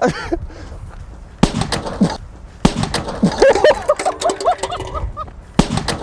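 Korsar-8 firecracker exploding inside a closed microwave oven and blowing the oven apart. There are sharp bangs about one and a half seconds in, again at two and a half seconds, and near the end, each followed by the clatter of breaking metal and plastic.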